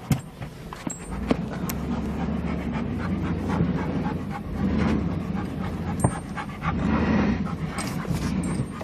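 An SUV on 20-inch rims crawling over a rough dirt trail, heard from inside the cabin. The engine rumble swells and eases about once a second as the vehicle pitches over the bumps, with sharp knocks and rattles from the body and suspension, the loudest just after the start, around a second and a half in, and about six seconds in.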